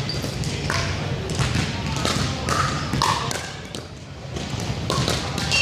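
Pickleball play: a plastic ball being hit by paddles and bouncing on a hardwood gym floor, giving sharp, irregular knocks over a steady low hum.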